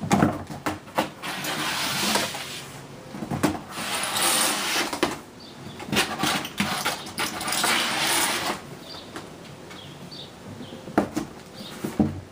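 Kittens scrambling on a large cardboard box used as a ramp: claws scratching and rustling on cardboard in several long stretches, with sharp thumps and knocks as they land. Two more sharp knocks come near the end.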